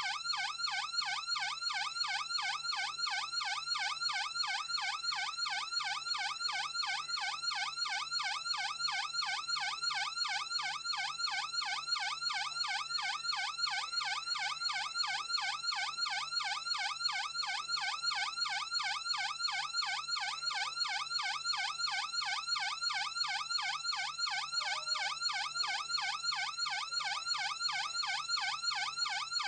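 Electronic police siren in a fast yelp, its pitch sweeping up and down a few times a second without a break.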